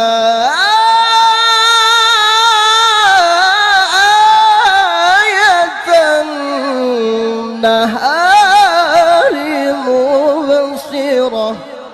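A male qari reciting the Quran in a high, drawn-out melodic style, holding one long ornamented note after another. The voice leaps up in pitch about half a second in, slides down around seven seconds, climbs again near eight seconds, and the phrase ends just before the close.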